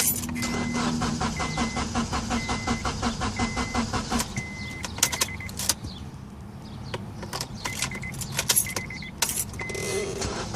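A 2005 Honda Accord LX that won't start, its starter making a fast, regular clicking of about four clicks a second as the key is held, without the engine catching. A dashboard warning chime beeps about once a second, and a few louder clicks come between five and nine seconds in.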